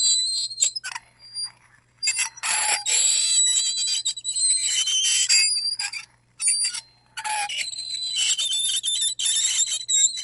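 Metal fork scraping across a ceramic plate in a run of strokes with short pauses between them, giving a high-pitched screech with squealing tones.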